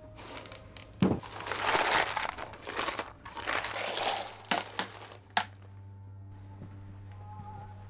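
Broken china, plastic and crumpled newspaper being tipped into a bin bag: clinking, clattering and rustling in several bursts, starting about a second in and stopping suddenly about five seconds in. A faint steady hum follows.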